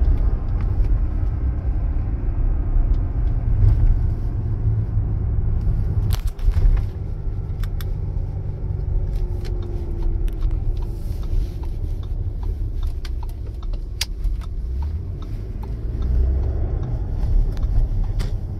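Low, steady road and drivetrain rumble inside the cabin of a 2021 Audi Q7 on the move, with a few scattered light clicks.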